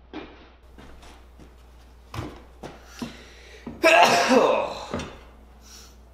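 Plastic fuel tank handled against a welded steel pit bike frame: a few light knocks, then about four seconds in a second of loud scraping and creaking as the tank is pressed down onto the frame.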